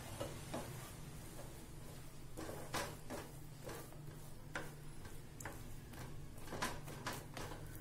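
Wooden spatula scraping and knocking against a non-stick pan while stirring peanuts into thick jaggery syrup cooked to the hard-ball stage. It comes as irregular clicks and scrapes, one or two a second, over a steady low hum.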